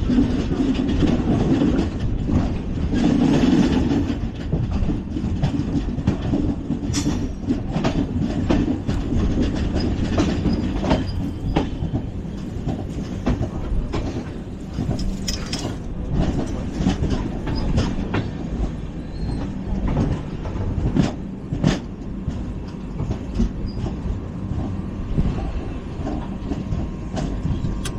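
Running noise of an LHB passenger coach moving along the track: a steady low rumble of wheels on rails, broken by scattered sharp clicks and clacks.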